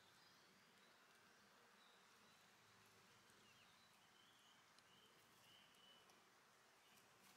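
Near silence: a faint outdoor background with a few short, high, distant bird chirps scattered through the middle.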